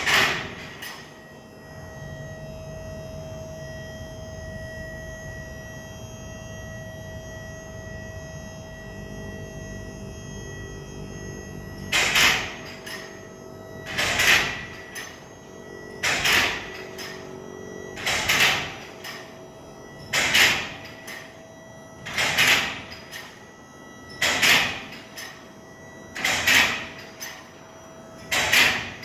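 Titan car-stacker lift in an enclosed trailer raising its deck: a loud hit at the start, then a steady motor hum with a faint whine. From about 12 seconds in, a loud sharp noise repeats about every two seconds, nine times.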